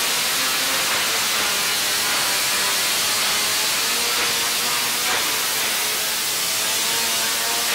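A steady, loud hiss without a break, strongest in the treble, with a faint wavering tone beneath it.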